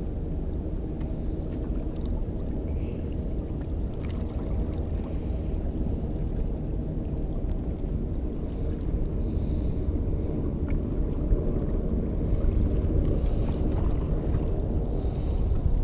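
Wind buffeting the microphone, a steady low rumble that grows a little louder near the end.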